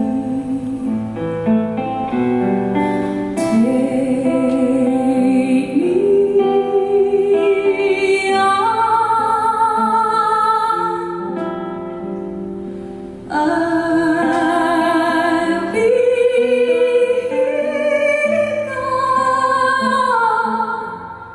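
Female vocalist singing a slow, sustained melody live, holding long notes with vibrato, over soft acoustic guitar and upright bass accompaniment.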